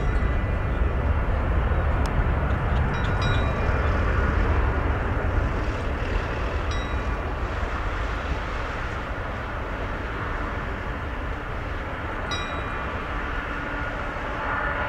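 Four CFM56 turbofans of an Airbus A340-300 at takeoff thrust during the takeoff roll: a steady jet roar with a deep rumble, growing gradually fainter as the aircraft rolls away.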